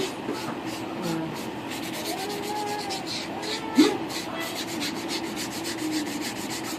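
Acrylic nails being filed in quick, even scratchy strokes, about five a second, over a steady low hum. There is a brief louder sound about four seconds in.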